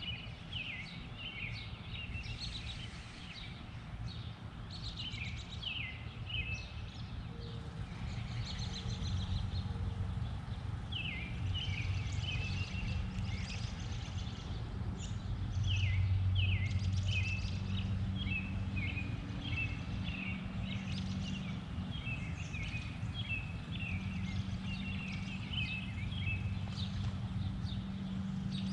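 Small birds chirping over and over in short, quick notes, over a steady low rumble.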